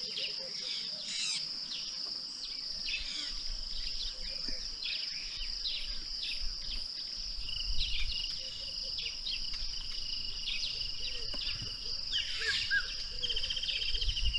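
Savanna ambience: a steady, high insect drone with many short bird calls over it, and a second, lower steady insect tone joining about halfway through. A low rumble comes in about halfway.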